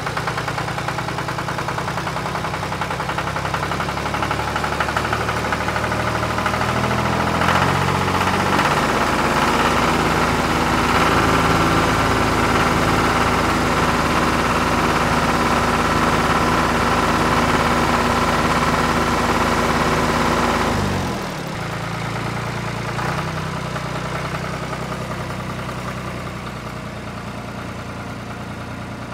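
Tractor engine running. It revs up about a quarter of the way in and holds the higher revs while the tractor hauls the stuck log trolley. Near two-thirds of the way through it drops sharply back to idle.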